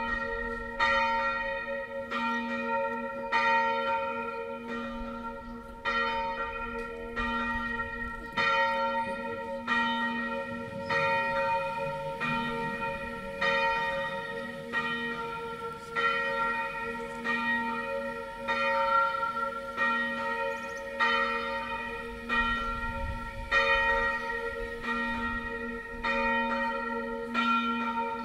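Single church bell IV of a six-bell Tyrolean swinging peal, the B-flat (Sib3) bell cast by Achille Mazzola of Valduggia in 1928 (80 cm, 276 kg), swinging in full-circle ringing. It sounds one stroke about every 1.2 seconds, each hum ringing on into the next.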